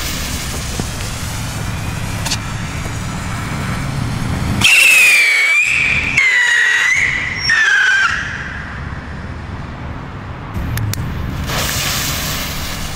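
Funke three-stage rocket whistling in flight: three loud wavering whistles one after another, starting about five seconds in, each stage lower in pitch than the last, the third falling away.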